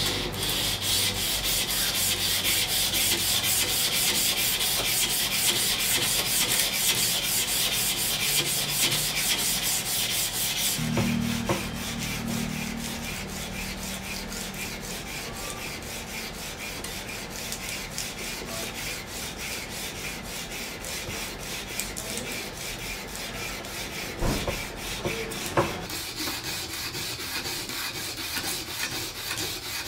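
Steel knife blade being hand-sanded with abrasive paper in quick back-and-forth strokes, a rhythmic rasping rub. The strokes are louder and harsher for the first third, then softer, with two light knocks near the end.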